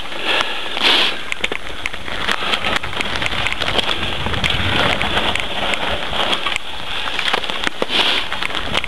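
Mountain bike descending a rough dirt trail at speed: a steady rush of tyre noise over dirt and stones, broken by a dense run of sharp clicks and knocks as the bike rattles over the bumps.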